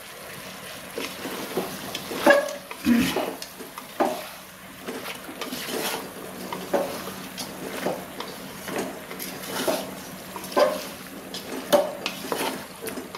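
Wooden spatula stirring raw chicken and potato pieces in an aluminium pressure cooker, with irregular scrapes and knocks against the pot as the salt is mixed in.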